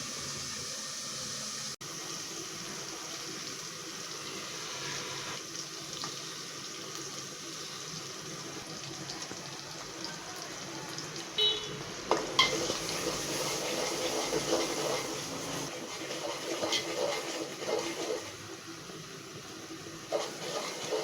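Tap water running steadily into a sink, with splashing and knocks from about halfway through as things are handled under the stream.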